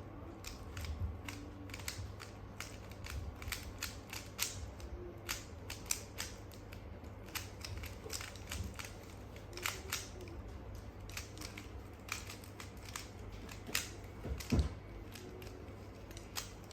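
Plastic Rubik's Cube layers being twisted quickly by hand, an irregular stream of clicks and clacks, with one louder knock near the end.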